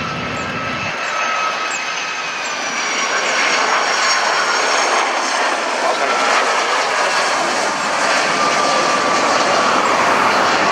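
Boeing 757 jet engines at approach power as the airliner comes in to land: a steady roar with a high whine of several tones that slowly fall in pitch as it passes, growing louder about four seconds in.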